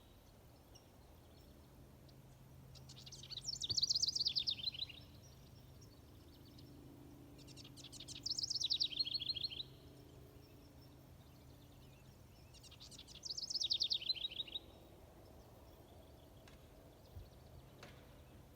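A warbler singing three songs about five seconds apart, each about two seconds long: a quick series of high notes that drops into a lower, faster trill.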